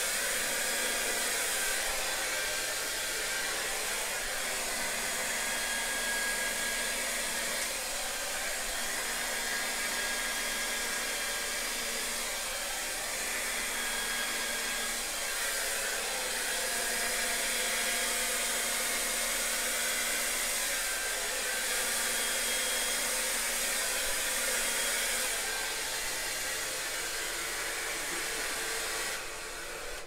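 Handheld hair dryer running steadily, blowing wet acrylic pour paint across a canvas; its rush of air swells and eases a little as it is moved, and it cuts off at the very end.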